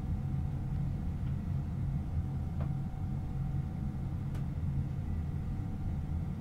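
Steady low hum inside a train carriage standing at a platform, with a faint steady whine above it and a couple of faint clicks.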